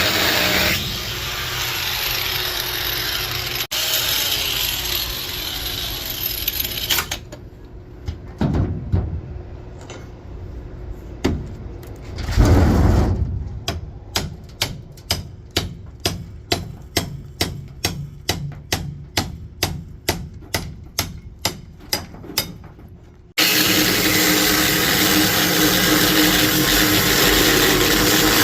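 Power drill or similar power tool running steadily as a safe is drilled open. It stops abruptly and is followed by a quieter stretch with evenly spaced sharp knocks, about two a second. Then the steady drilling cuts in again.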